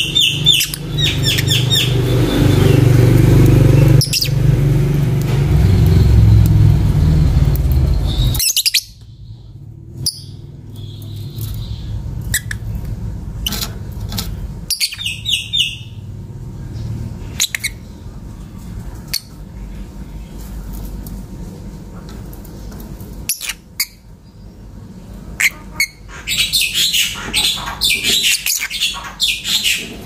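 Fischer's lovebirds chirping in quick runs of sharp high calls: a burst at the start, another about halfway, and dense chattering near the end. A loud low rumble runs under the first eight seconds or so and cuts off suddenly.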